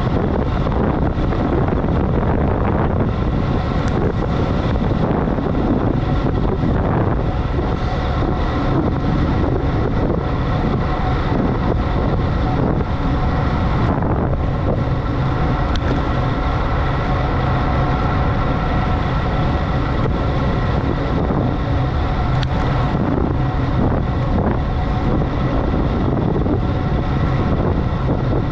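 Steady wind rushing over the microphone of a camera riding along on a road ride. A steady hum of several tones joins it about halfway through.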